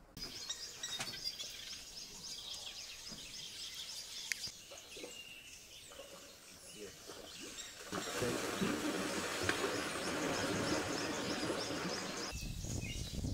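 Birds chirping and calling. About two-thirds of the way through, a steady rush of splashing water starts as hippos wade through shallows, and it stops suddenly near the end.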